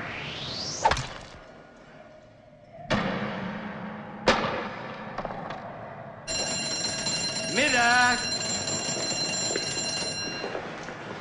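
A break bell rings steadily for about four seconds, announcing the lunch break, with a shout of "Mittag!" over it. Before it come a quick rising whistle-like sweep and a few sharp knocks.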